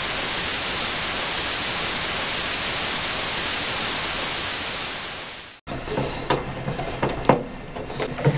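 Steady white-noise hiss like TV static for about five and a half seconds, cutting off suddenly. After that come a few sharp clicks and light scrapes of a screwdriver working the screws out of a microwave oven's sheet-metal cover.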